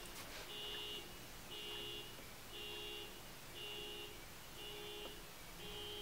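Car alarm going off faintly, beeping in a steady rhythm of about one beep a second, each beep lasting about half a second.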